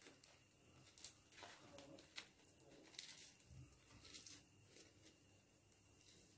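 Faint, scattered crackles and soft tearing as the charred, papery skin of a fire-roasted eggplant is peeled off by hand.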